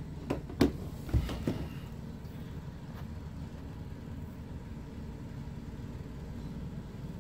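A few short soft knocks in the first second and a half, like handling of the camera or binder, then a steady low room hum.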